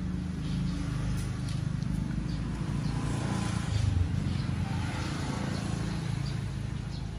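Low, steady rumble of a motor vehicle, swelling about four seconds in.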